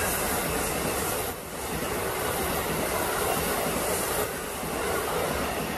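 Amtrak passenger train's coaches passing close by at speed: a steady rush of wheels on rail with some clatter, briefly dipping about a second and a half in.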